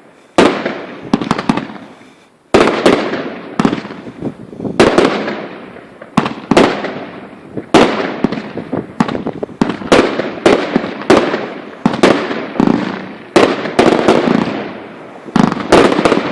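Fireworks going off: a run of sharp bangs about a second apart, each trailing off in an echo. Near the end they thicken into rapid crackling.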